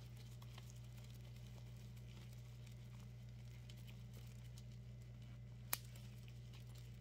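Faint squishing and rubbing of soapy gloved fingers working dish soap into a wire-wrapped pendant, over a steady low hum, with one sharp click a little before the end.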